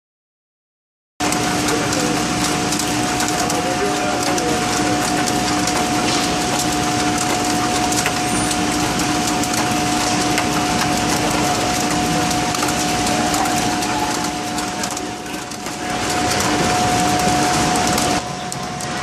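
Silent for about a second, then produce packing line machinery running: conveyor belts and an electric drive motor making a loud, steady mechanical din with a constant hum in two steady tones. Near the end the sound changes abruptly, and the lower of the two tones stops.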